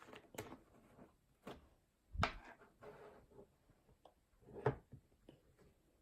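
Cloud slime being stretched, pulled and drizzled by hand, giving short sticky crackles and squishes. The two loudest come about two seconds and four and a half seconds in.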